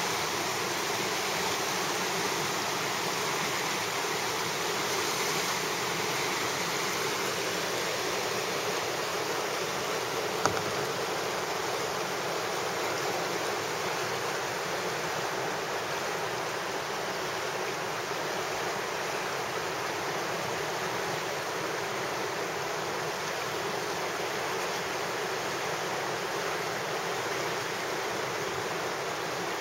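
River water rushing steadily over rocks in a shallow riffle. A single short click about ten seconds in.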